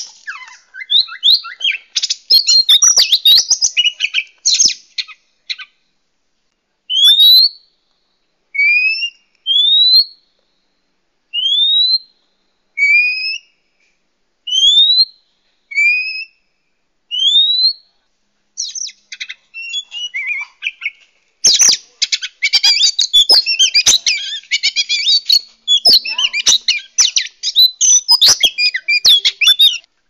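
Oriental magpie-robin (kacer) singing: a burst of rapid, varied chattering song, then a series of separate rising whistles about one a second, then dense rapid song again for the last third.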